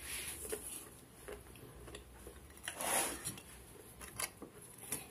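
A kitchen knife and dishes clinking and knocking faintly, a few separate sharp clicks, with a brief scraping sound about three seconds in.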